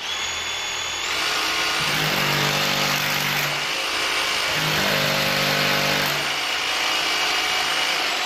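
DeWalt 18V cordless drill hammer-drilling into a solid masonry wall, a steady loud drilling noise throughout, with a deeper motor hum coming in twice, around two and five seconds in.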